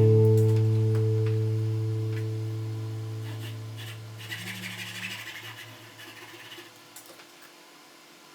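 Final acoustic guitar chord of the background music ringing out and slowly fading away over about six seconds. Faint light scratching sounds come in the second half.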